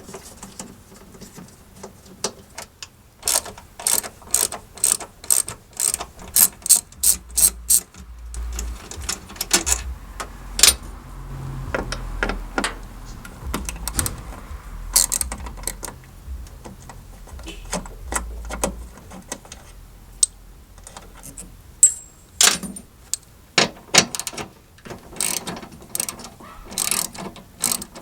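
Hand ratchet clicking in runs as the 10mm bolts holding the wiper motor and linkage assembly are unscrewed, the clicks coming faster about seven seconds in and again near the end.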